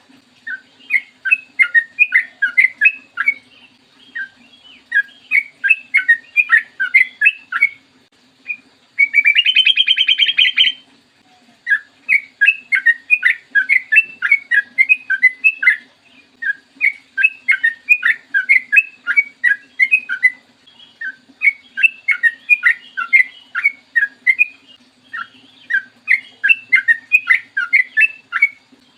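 Yellow-vented bulbul singing: repeated quick runs of bubbly chirping notes in phrases a second or two long, with a louder, harsh buzzing call about a third of the way in. A faint steady low hum sits underneath.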